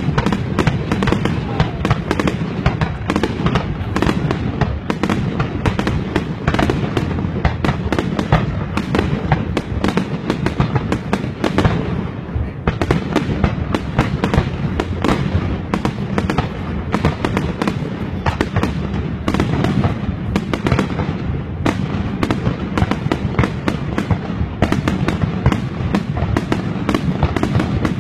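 Fireworks display: a dense, unbroken string of bangs and crackling bursts, many overlapping.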